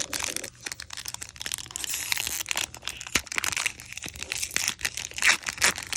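Foil wrapper of a Pokémon Unbroken Bonds booster pack crinkling and tearing as it is opened by hand, a dense run of sharp crackles.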